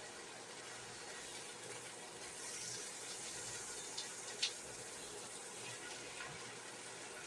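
Spinach sizzling faintly as it wilts in a stainless steel pan while it is stirred, with two short clinks of the utensil against the pan about four seconds in, the second louder.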